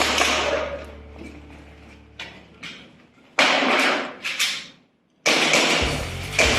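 Gas blowback airsoft pistols, hi-capa type, firing a string of sharp shots with their slides cycling. A quick run of four shots comes at about three and a half seconds, and more shots follow near the end.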